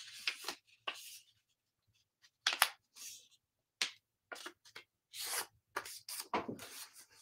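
A printed paper bookmark being handled and folded in half: a series of short paper rustles and crinkles.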